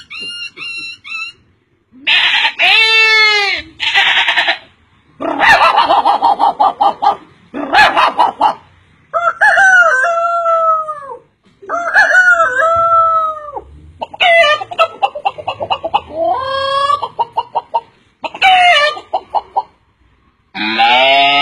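A man's voice imitating a rooster crowing and a hen clucking: a string of about eight separate calls with short pauses between them, some rising and falling in one long arc, others a rapid run of short pulses.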